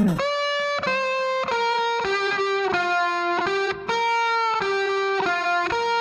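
Instrumental background music: a single melody line of held notes, changing pitch about every half second, with a brief break about halfway through.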